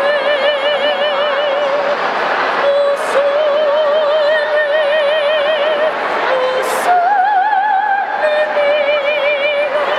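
Gondolier singing an operatic song in a woman's voice: long held notes with a wide, even vibrato, the line rising to a higher note about seven seconds in and then settling back.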